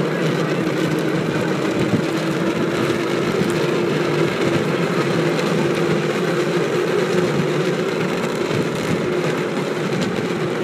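Steady rolling noise of wheels running along asphalt, with a faint hum held through it.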